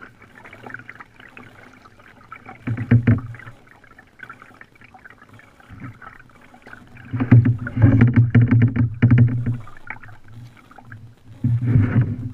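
Kayak being paddled: paddle strokes and water splashing and knocking against the plastic hull, heard close through a hull-mounted GoPro, in three loud spells: about three seconds in, a longer one from about seven to nine and a half seconds, and near the end.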